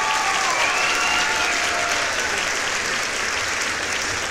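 Crowd applauding, with a few voices cheering during the first second or so.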